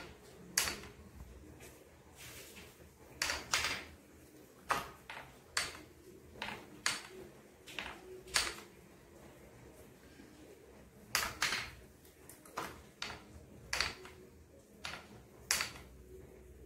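Irregular wooden clicks and light knocks from the turning rings and hubs of a string-driven wooden kinetic sculpture, coming in small clusters a second or so apart with a longer gap about halfway through.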